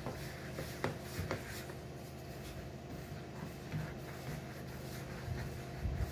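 Hands mixing and squeezing soft bread dough in a plastic bowl: faint squishing and rubbing, with a couple of light clicks about a second in.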